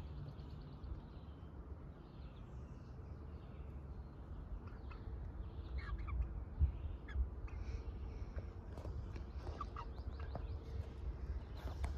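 Chickens making scattered short, soft clucks and calls, over a steady low rumble.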